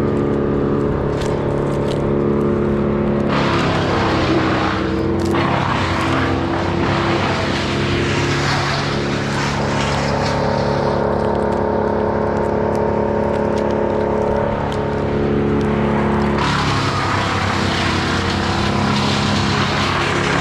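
An engine running steadily, growing noisier in spells as it comes under load: about 3 to 7 seconds in, and again from about 16 seconds in.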